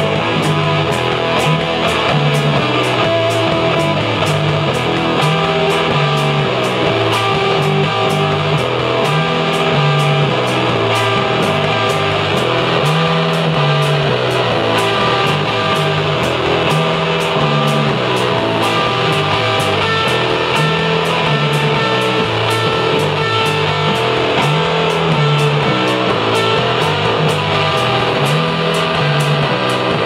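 Live rock band playing an instrumental passage: loud electric guitar over a steady drum beat, with a repeating low riff underneath and no vocals.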